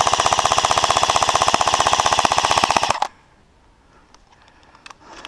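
Airsoft rifle firing a long full-auto burst: a fast, even stream of shots that cuts off about three seconds in.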